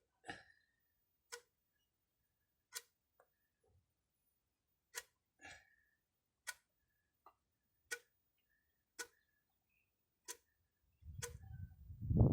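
Sharp separate clicks or light knocks, roughly one every second, from hand work on a thick hydraulic hose. A low rumbling noise starts near the end.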